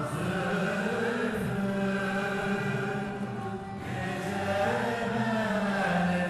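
Turkish art music ensemble performing a song in the Kürdilihicazkar makam: sung voices hold long, wavering notes over instrumental accompaniment.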